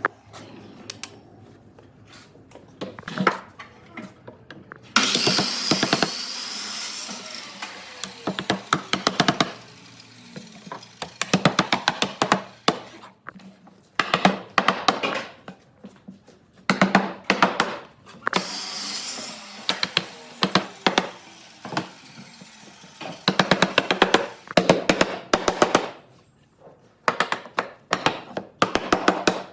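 Workshop tool sounds during woodworking: runs of rapid clicks and taps, broken by two bursts of loud rushing noise, one about five seconds in and one near the middle.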